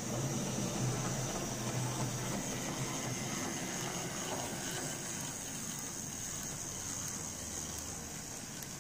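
Hornby OO gauge J94 0-6-0 tank locomotive model running along the track, its small electric motor whirring and its wheels rolling over the rails in a steady noise. A low hum drops away about two and a half seconds in.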